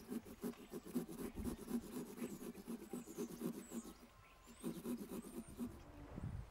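Small fine-toothed pumpkin-carving saw sawing back and forth through a pumpkin's wall in quick, even scratchy strokes. The strokes pause briefly about four seconds in, start again, and stop near the end.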